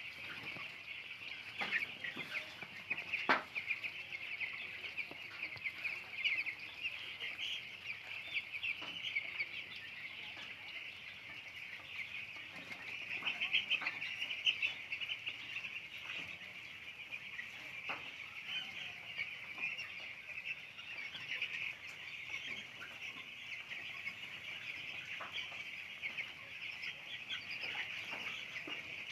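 A flock of young broiler chicks peeping continuously, many high chirps overlapping, with a few scattered sharp clicks or knocks.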